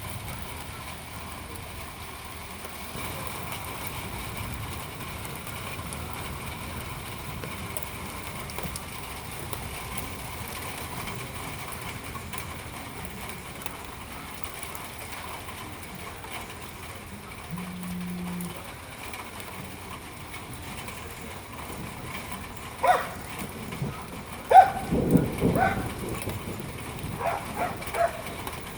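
Dog barking in a series of short, sharp barks near the end, over a steady background hiss.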